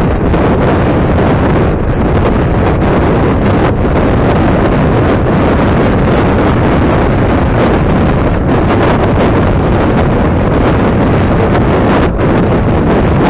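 Loud, steady wind rush buffeting the microphone of an action camera mounted on the windscreen of a Yamaha X-Max 250 scooter riding at road speed.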